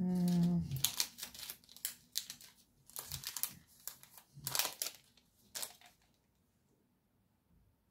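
Clear plastic sleeves of acrylic stamp sets crinkling and rustling as they are picked up and shuffled, in several short irregular rustles that stop about six seconds in.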